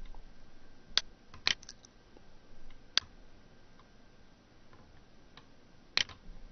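Computer mouse button clicking: a few short, sharp single clicks spaced a second or more apart, the loudest about six seconds in.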